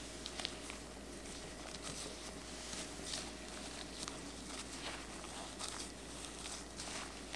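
Gloved hands rubbing cold butter cubes into flour in a glass bowl: soft, irregular rustling strokes of the floury mixture and the latex gloves, with a couple of light clicks about half a second in.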